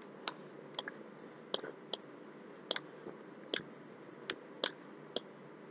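Computer mouse clicking about nine times, single sharp clicks at uneven intervals of roughly half a second to a second, over faint steady hiss.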